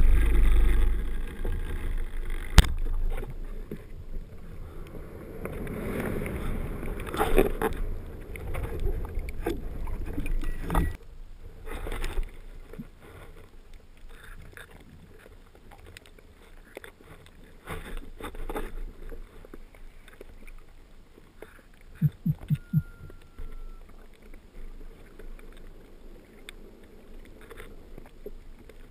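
Rough-sea wave surge heard underwater in the shallows: a loud low rumble at the start, then rushes of churned water that swell and fade, with scattered clicks and knocks. A quick run of low pulses comes about two-thirds of the way in.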